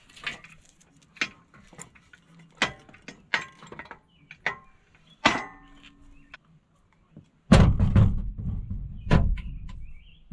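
Metal clanks and knocks, one ringing briefly, as the hydraulic ram is unpinned and pulled off a steel engine hoist. In the last few seconds a loud low rumble takes over.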